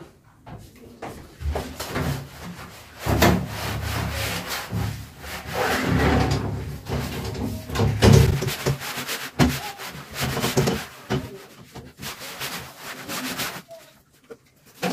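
Scrubbing and wiping of bathroom surfaces by hand during cleaning: uneven rubbing strokes, some much louder than others, thinning out near the end.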